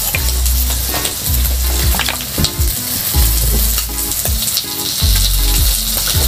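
Food sizzling and crackling in a hot pan, a steady hiss, over background music with a regular beat.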